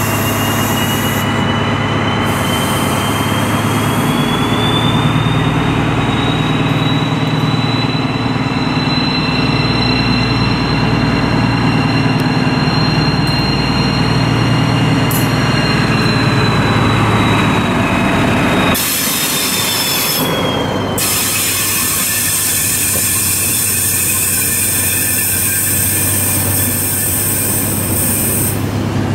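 DB class 218 diesel-hydraulic locomotive with an Intercity train drawing in close by: a steady low engine hum under a high squeal that rises slightly in pitch. About 19 seconds in the locomotive passes and the squeal dies away, leaving the hiss and rumble of the coaches rolling past.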